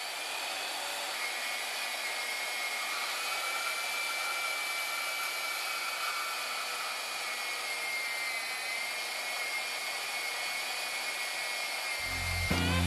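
Harbor Freight Bauer portable bandsaw running and cutting through steel square tubing: a steady whir with a faint high whine over it. Rock guitar music comes in near the end.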